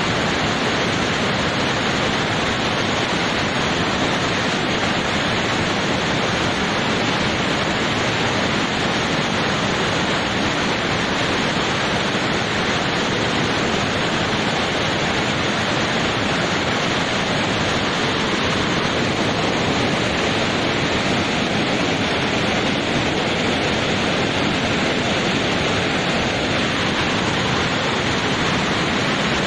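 Muddy floodwater of a flash flood rushing and crashing down a steep, rocky stream bed: a steady, loud rush of water.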